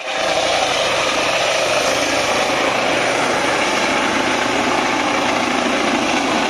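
Air ambulance helicopter's turbine and rotor running loudly and steadily as it lifts off from the grass.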